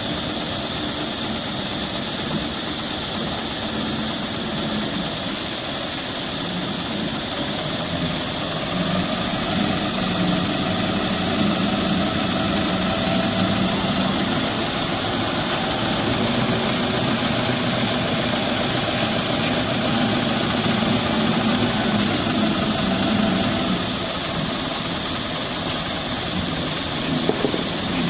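An engine running steadily, louder from about eight seconds in and easing off near the end, over a constant high-pitched drone.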